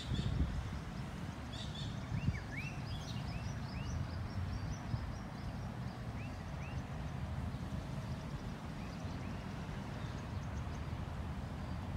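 Small birds chirping in short, curved calls every second or so, over a low steady rumble.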